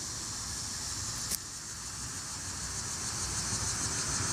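Steady high-pitched insect chirring over a low rumble that slowly grows louder; one faint click about a second and a half in.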